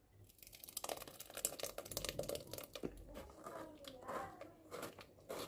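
Faint crackling and small clicks of blended lemon, apple, ginger and garlic juice being strained through a kitchen strainer.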